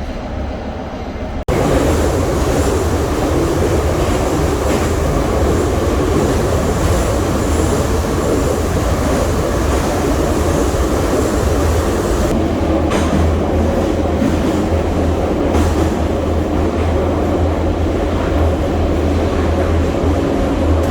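Dnipro Metro train running on the rails: a loud, steady low rumble with rail noise. It starts abruptly about a second and a half in.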